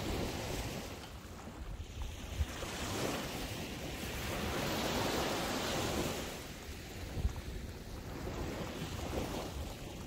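Ocean surf breaking and washing up the beach, swelling to its loudest about halfway through, with wind buffeting the microphone.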